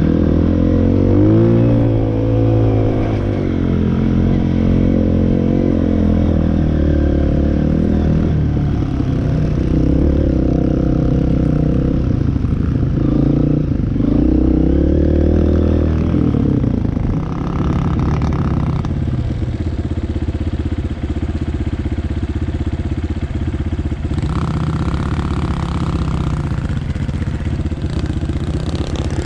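Off-road vehicle engine revving up and down, its pitch rising and falling repeatedly. From about 16 seconds in it settles to a steadier, lower run.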